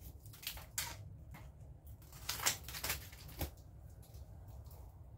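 Scissors snipping a strip of adhesive Velcro tape, with light crinkling as it is handled: a run of irregular sharp clicks, the loudest about two and a half to three and a half seconds in.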